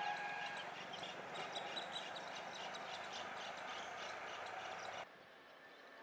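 Outdoor ambience with many short, high bird chirps, over a steady distant tone that stops within the first second. About five seconds in, the sound cuts abruptly to a quieter background.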